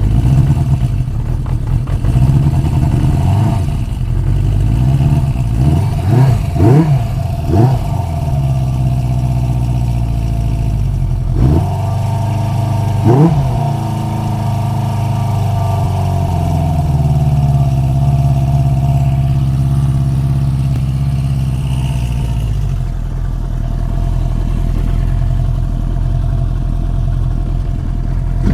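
1973 Honda CB350 Four's air-cooled inline-four idling just after a cold start on choke, warming up. The throttle is blipped into short revs a few times, bunched about six to eight seconds in and once more near the middle, and the idle then settles a little lower.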